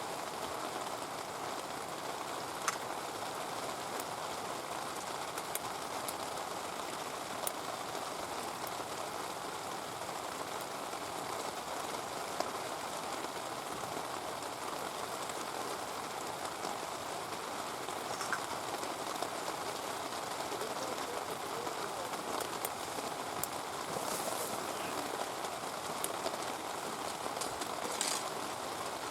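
Heavy rain falling steadily, an even hiss with scattered sharp ticks.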